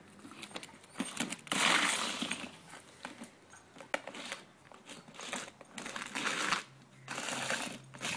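A clear plastic lidded box scraping, sliding and knocking on concrete as a Jack Russell terrier shoves it with its nose, in irregular bursts of scraping broken by short clicks and knocks.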